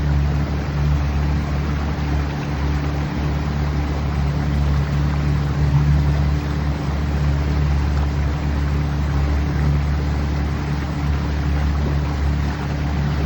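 Boat motor running at a steady speed, a constant low hum with rushing water and wind noise over it.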